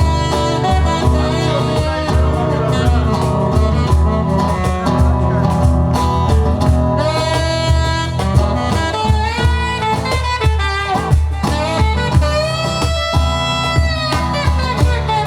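Live band playing, a saxophone leading with long, bending melodic phrases over bass and drums.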